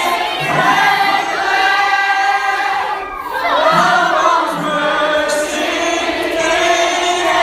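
A group of voices singing together in held, drawn-out notes, like a crowd or choir singing along.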